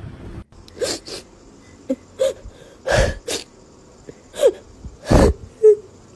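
A person's short breathy gasps, about nine of them in quick succession, some with a brief voiced tone.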